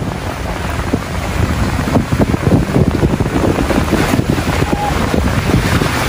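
Strong wind buffeting the microphone in a loud, low rumble, over surf washing against the rocks.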